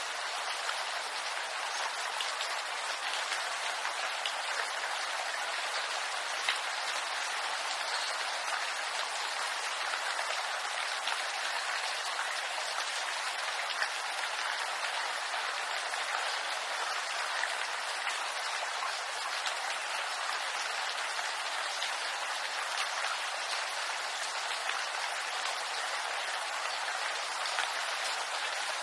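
Steady rain falling in a bamboo grove, an even hiss of rain with single drops tapping out now and then.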